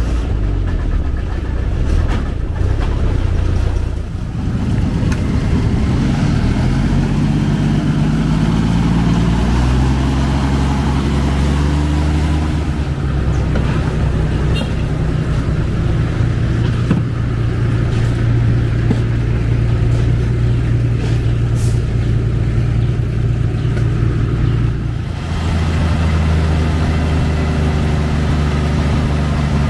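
Old ZIL-164 dump truck's engine running. It revs up a few seconds in and is held at higher revs while the tipper bed is raised to dump sand, then drops back to a lower idle near the end.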